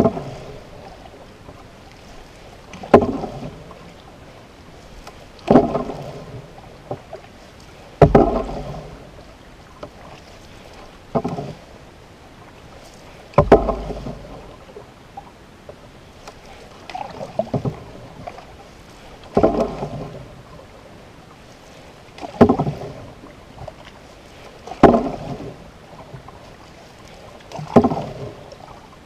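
Canoe paddle strokes: each stroke a short knock followed by a brief splash and swish of water, one about every two and a half to three seconds.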